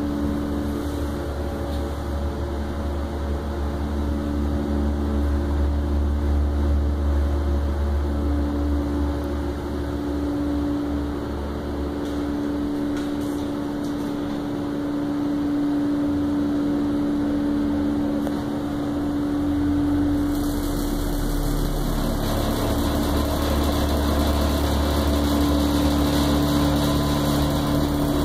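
Thyssen hydraulic elevator travelling upward: a steady drone of the hydraulic drive with a low hum and a constant tone. About twenty seconds in, a broader hiss joins.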